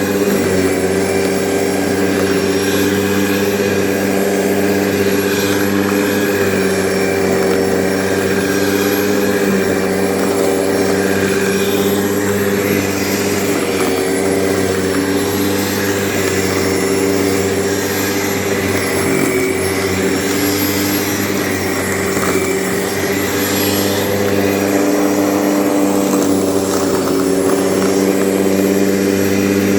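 Grunman corded electric lawn mower running steadily, its motor and spinning blade giving an even, pitched hum.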